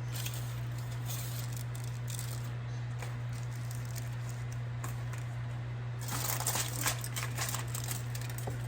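Steady low hum, with a short burst of wet crackling and rustling about six seconds in as a raw salmon fillet is lifted and shifted in its garlic marinade.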